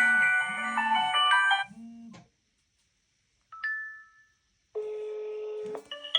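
Smartphone call sounds. A melodic chiming ringtone over a pulsing bass stops a little under two seconds in. After a pause comes a short two-note chime. Then a steady beep lasts about a second, and another pulsing ringtone begins near the end.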